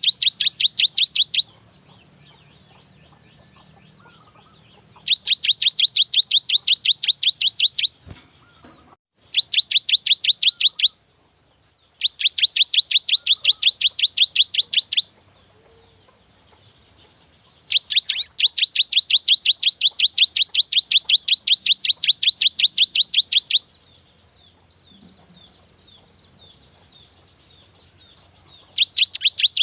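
Cinereous tit (gelatik batu) singing in bouts of fast, evenly repeated high notes, about five a second. Each bout lasts a few seconds and is followed by a pause. A brief knock sounds about eight seconds in.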